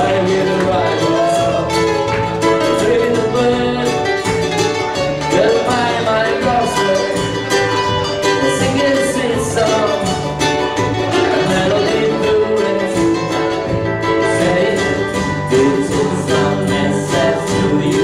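Live acoustic band of strummed ukuleles, a ukulele bass and a foot drum playing a reggae song, with a voice singing over it.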